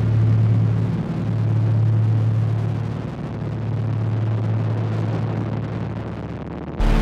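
Dark electronic drone from a live electronics set: a loud, steady low hum under a rumbling noise wash, its upper hiss slowly thinning. Just before the end it is cut off suddenly by a louder, fuller layer with deep bass.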